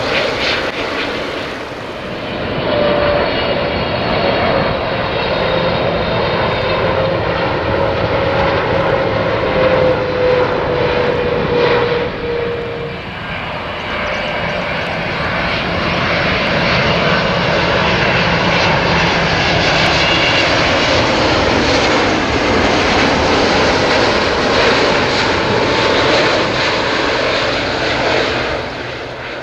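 Twin-engine jet airliners on final approach with gear down, passing low overhead: a loud, steady engine rumble with a whine that slowly falls in pitch over the first half.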